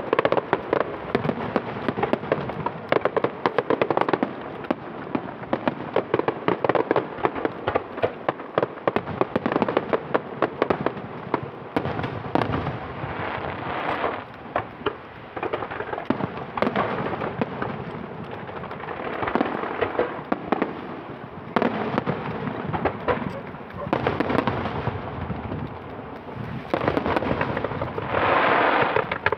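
Aerial fireworks display: many shell bursts going off in quick succession with crackling between them, the bangs coming in louder clusters every few seconds and heaviest near the end.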